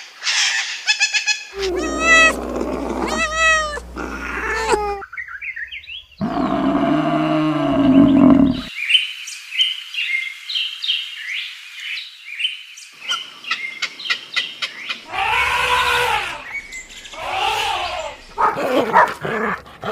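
A string of different animal calls cut one after another: repeated pitched cries, a lower drawn-out call about six seconds in, a few seconds of high bird chirping, then more cries near the end.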